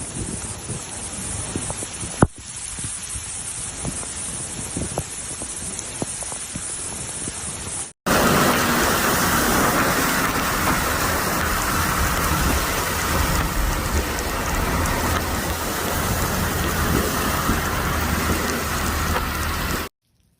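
Heavy rain falling, with a few sharp drop clicks and one loud crack about two seconds in. At about eight seconds it cuts to a louder, heavier downpour that stops abruptly near the end.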